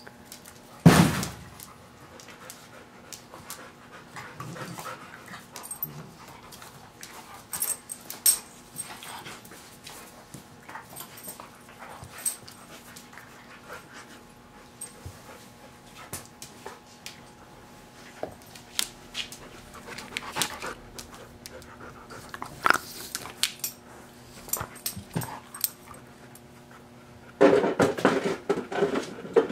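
Two dogs play-fighting: panting and scattered scuffling and knocking sounds, with one loud sharp knock about a second in and a louder, busier stretch of scuffling near the end.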